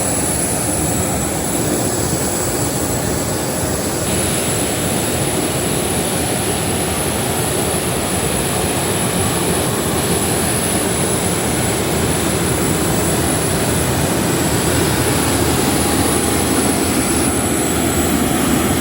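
Steady jet engine and airflow noise inside an airliner cabin in flight, an even rush with a faint high whine.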